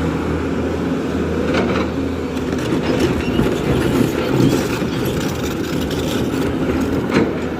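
JCB 3DX backhoe loader's diesel engine running steadily while the machine works, with two sharp knocks, one about a second and a half in and one near the end.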